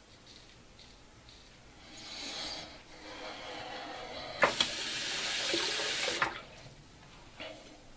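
Bathroom tap running into the sink in two spells: a brief one about two seconds in, then a louder, splashing one from about four and a half to six seconds in. It starts and stops with a few sharp knocks.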